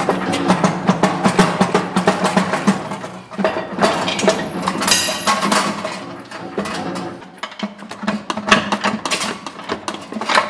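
Rapid metallic clicking of a ratchet working a fastener loose on the transmission from under the car, in spells with short pauses.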